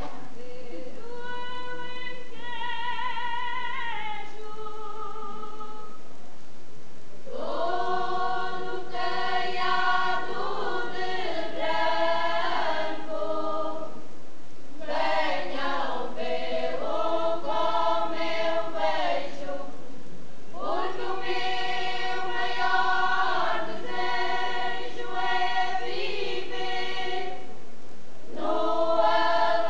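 Women's folk choir singing an Alentejo song unaccompanied, in the cante alentejano manner. A single voice leads the opening line, then the full choir joins about seven seconds in, singing slow, drawn-out phrases with short breaks between them.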